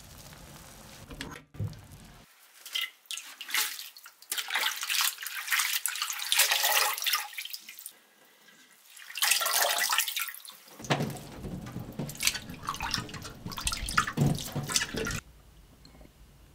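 Water sloshing and splashing in uneven bursts as hands swish and rinse blanched soybean sprouts in a bowl of water in a sink. It stops suddenly near the end.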